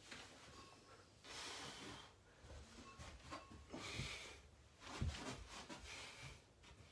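A man breathing hard through several breaths while doing walkouts, with a soft thump about five seconds in.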